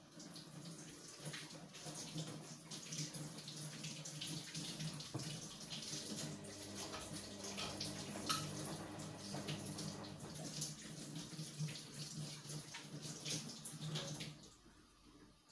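Kitchen tap running into a stainless steel sink while hands are rubbed and rinsed under the stream, washing off a dried rice scrub; the water stops near the end.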